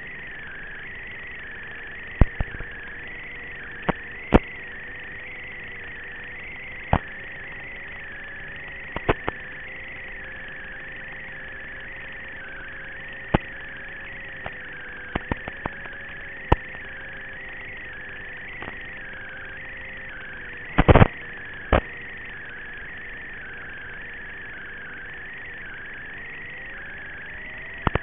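Brotherhobby Avenger 2507 1850kv brushless motor and propeller of an FPV plane, heard faintly through a narrow, hissy audio channel as a steady drone whose pitch rises near the end as the throttle goes up. Sharp clicks and crackles break in a dozen or so times, loudest about two-thirds of the way through.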